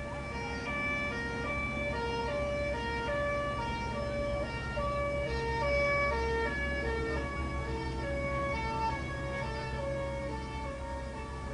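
Two-tone emergency siren of an airport fire truck driving past, alternating between a high and a low note about every half second, over a steady low rumble.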